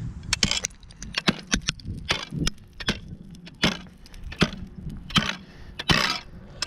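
Steel ice spud bar chopping into thick lake ice, about ten sharp strikes spaced under a second apart.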